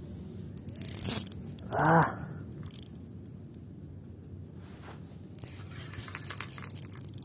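Ryobi Smurf spinning reel being wound in on a hooked fish: a light rattling, scraping clicking of the handle and rotor, with fine rapid clicks building near the end. A sharp knock about a second in and a short call-like sound, the loudest thing, near two seconds in.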